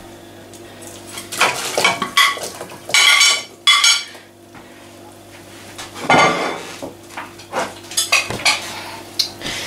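Metal slotted spoon scraping and clinking against a ceramic plate as chopped carrots and leeks are pushed off it into a pot of stock, in a string of short clatters with a fuller burst about six seconds in.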